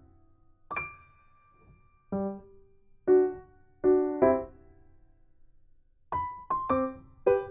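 Background music: a gentle solo piano playing spaced single notes and chords that ring out and fade, with a quicker run of notes near the end.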